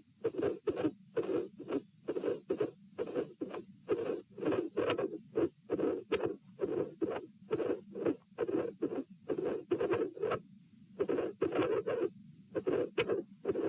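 Human heartbeat heard over the pulmonary area of the chest: a run of soft, dull lub-dub beats with uneven spacing and longer gaps about ten seconds in and again about twelve seconds in. The irregular rhythm is the sign of premature beats (PACs and PVCs).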